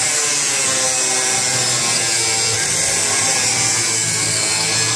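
Angle grinder cutting through a steel drum, running steadily under load with a harsh, hissing grind of the wheel biting the metal.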